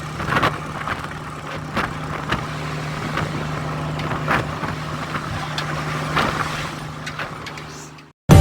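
An engine running steadily with a constant low hum, with scattered short knocks and clatter over it; it fades away near the end.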